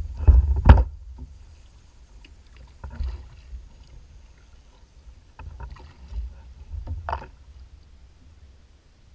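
Knocks and water splashing around a plastic fishing kayak on the water. A loud cluster comes in the first second, with fainter knocks around three seconds and again between five and seven seconds, over a low rumble.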